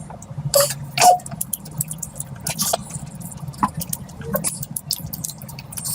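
Close-miked chewing and wet mouth smacks of a person eating, with irregular sharp clicks and squelches a few times a second.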